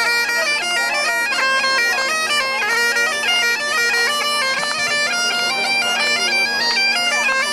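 Bagpipes playing a tune: the chanter's melody steps from note to note over an unbroken steady drone.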